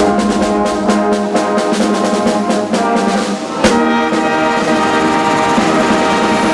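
Brass band music: held brass chords over a steady drum beat, with a sharp hit about three and a half seconds in, after which the drumming mostly drops away under sustained brass.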